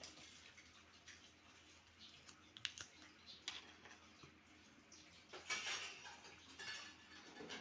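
Faint scattered small clicks and taps of light handling, with a louder brief rustling scrape a little past halfway and another near the end.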